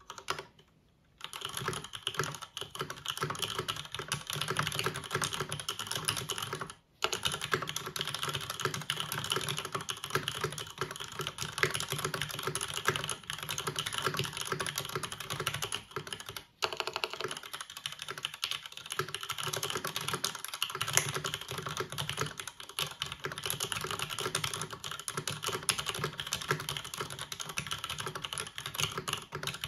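Continuous typing on a Time 80 Reforged mechanical keyboard, top-mounted with a full aluminum plate and stock Cherry MX linear switches: a dense, steady patter of keystrokes. It breaks off briefly about a second in, around seven seconds in, and again near the middle.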